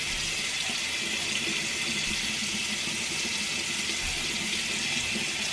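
Bathroom sink tap running steadily into the basin.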